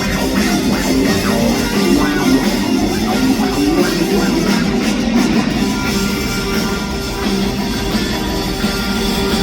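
Live rock band playing, with electric guitar to the fore over drums.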